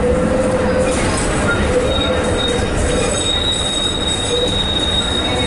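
Fiat Ferroviaria 4900-series tram running, heard from inside the passenger cabin: a steady rumble with a thin, high squeal held throughout and a lower whine that comes and goes.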